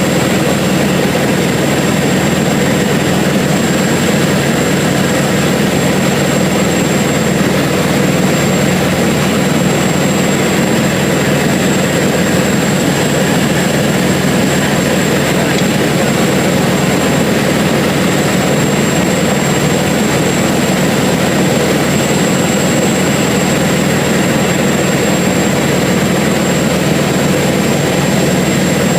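Cessna 177RG Cardinal's four-cylinder Lycoming engine and propeller droning at a constant, unchanging level, heard from inside the cabin in flight.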